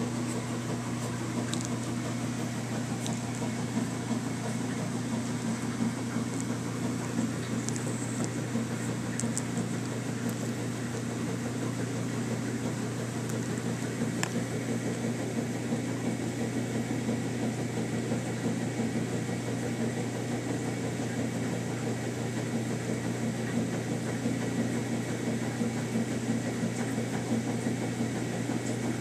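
A steady low mechanical hum, like a running appliance, with a few faint clicks.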